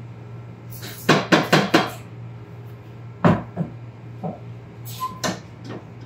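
Clatter of flour being added to the steel bowl of a Hobart stand mixer: a quick run of four or five knocks, then a single hard knock and a few lighter clicks as the mixer is handled. A steady low hum lies underneath.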